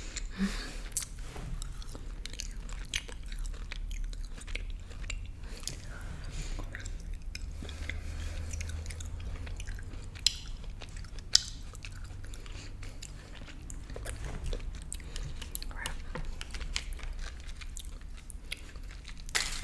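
Close-miked chewing of a jelly bean: soft wet mouth sounds and many small clicks, with a few sharper clicks.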